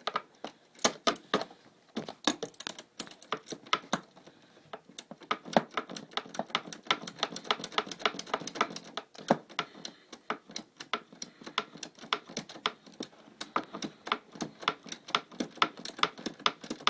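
Socket ratchet wrench clicking in quick runs of strokes as the handlebar clamp bolt is tightened down onto the steering column of a TaoTao ATE-501 electric scooter.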